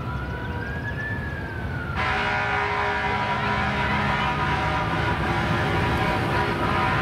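A police siren wailing, its pitch rising and then falling. About two seconds in, several car horns start honking at once and keep on steadily, over a low engine rumble.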